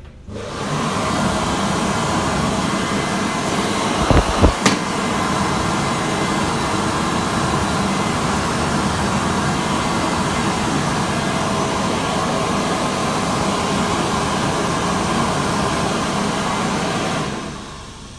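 Airdri Classic warm-air hand dryer switching on about half a second in and blowing steadily, then running down near the end. A few low thumps and a click about four seconds in.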